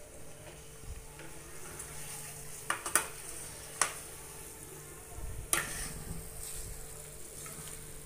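A spatula stirring prawns through thick masala in a stainless steel kadhai, the masala sizzling in oil. The spatula knocks sharply against the pan four times, twice about 3 s in, once just before 4 s and once about 5.5 s in.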